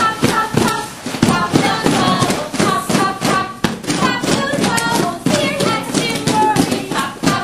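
Hands tapping and patting quickly and unevenly, with music and voices over the taps.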